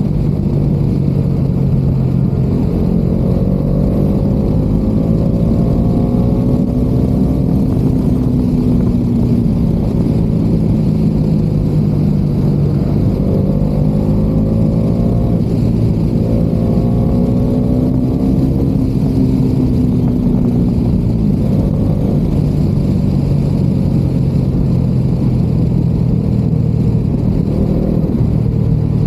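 Bajaj Dominar 400's single-cylinder engine pulling steadily under riding load, heard from inside a helmet with heavy wind and road rumble. Its pitch climbs for several seconds and then eases off, twice.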